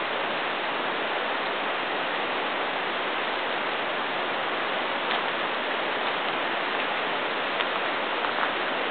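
Steady rushing of a river's flowing water, with a few faint ticks.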